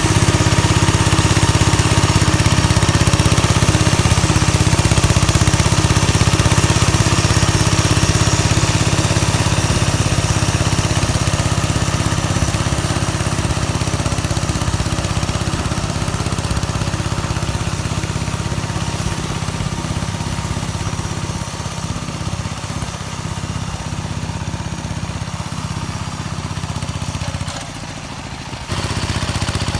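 Engine of a home-built mini-tractor converted from a walk-behind tractor, running steadily while rotary-tilling soil. It slowly gets quieter, dips briefly near the end, then comes back up.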